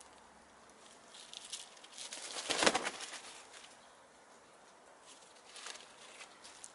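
Hens scratching and rustling in dry fallen leaves, light crackles here and there with one brief, louder flurry about two and a half seconds in.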